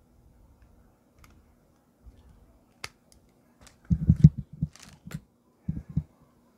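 Handling noise of a condenser microphone and its XLR cable: a few light clicks, then a cluster of dull low thumps about four seconds in and a second pair near the end as the microphone is moved and stood on its base.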